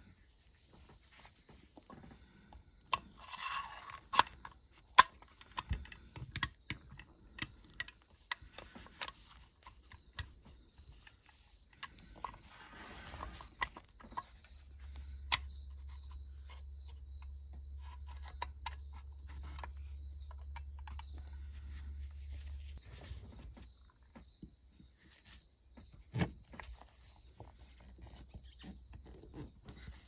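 Sharp clicks and taps of small toy tractor parts and wheels being handled and fitted together by gloved hands, densest in the first third.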